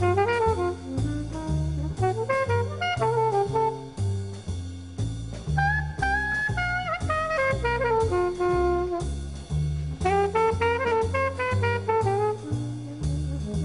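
Instrumental jazz background music: a melody over a bass line that steps to a new note about twice a second.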